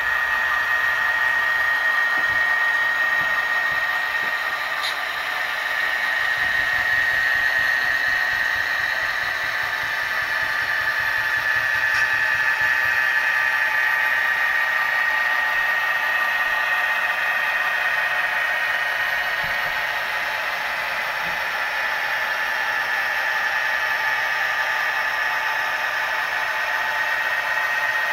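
Sound-equipped HO scale diesel locomotive playing its recorded diesel engine sound through a small onboard speaker: a steady, thin running sound with little bass and a steady high-pitched whine over it.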